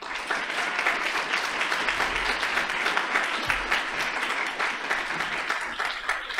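Audience applauding: many people clapping at once, starting suddenly and keeping up steadily.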